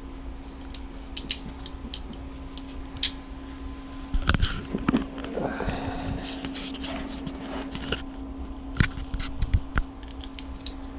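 Small metal clicks, taps and scrapes of doorknob parts and a long mounting screw being handled and fitted against the door, with a few louder knocks about four seconds in and again near nine seconds, over a steady low hum.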